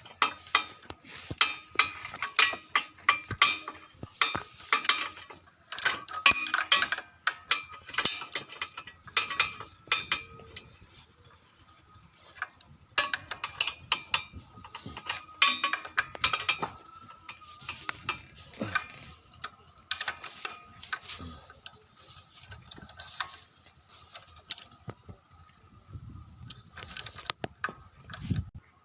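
Bolts over a freshly fitted gasket on a petrol generator being tightened with a hand tool: runs of quick metal clicks. The clicking is densest in the first ten seconds and thins out later.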